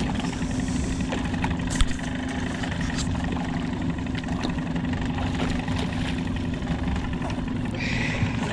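A small boat's outboard motor idling steadily, with a few light clicks and knocks over it and one sharper knock just under two seconds in.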